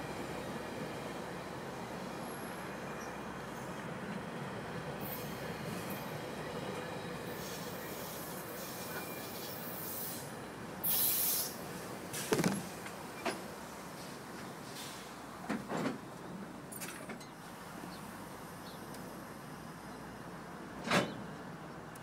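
GO Transit bilevel passenger coaches rolling past with a steady rumble of wheels on the rails. A short hiss comes about halfway through, followed by several sharp clacks over the next ten seconds as the last coaches go by.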